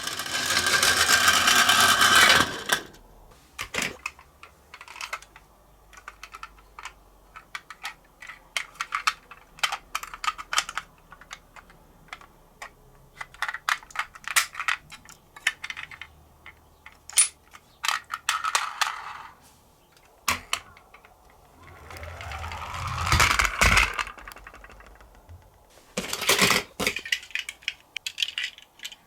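Toy minicars clicking, clinking and rattling as they are handled, with three longer stretches of a minicar rolling down a slope: a loud run at the start, a rising one about two-thirds of the way in, and a short one near the end.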